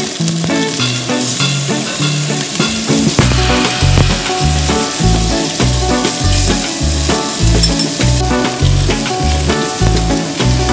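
Whole fish frying in hot oil with ginger slices, sizzling steadily, under background music with a steady beat whose bass line comes in about three seconds in.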